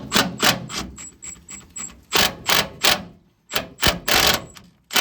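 Loud, sharp strikes on metal in quick groups of two or three, with a longer rattling burst about four seconds in: hammering on hitch hardware on a truck frame.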